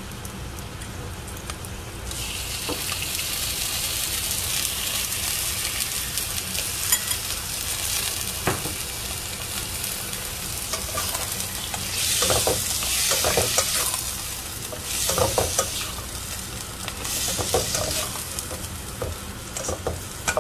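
Raw pork cubes sizzling in hot oil with sautéed onions, the sizzle rising sharply about two seconds in as the pork goes into the pot. From about halfway, a spatula stirs and scrapes the meat around the pan in short spells.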